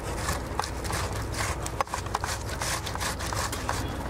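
Fresh tomato being grated by hand over a bowl: repeated short scraping strokes, a few a second, over a low steady rumble.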